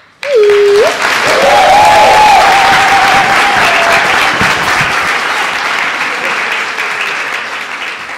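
Audience applauding, starting suddenly just after the dance music stops, with a few voices shouting cheers in the first few seconds; the clapping slowly dies down near the end.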